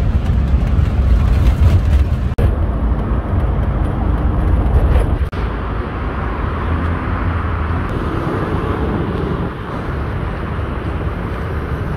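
A low engine rumble from inside a city bus for the first few seconds. After abrupt cuts about two and five seconds in, it gives way to the steady noise of heavy traffic on a busy multi-lane road.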